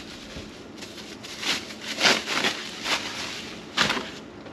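Clear plastic bag crinkling and rustling in a series of short bursts as a camping lantern is pulled out of it and the bag is pushed into a cardboard box.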